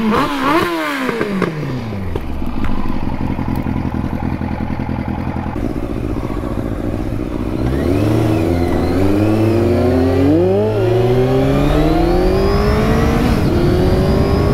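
Motorcycle engine close by: its revs drop away at the start and settle to a steady idle, then about halfway through it is revved and the pitch climbs, with a short dip before rising again near the end.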